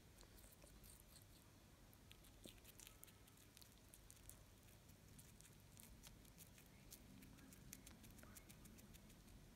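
Syrian hamster gnawing a piece of cucumber: faint, quick, irregular crunching clicks as its teeth bite into the watery flesh.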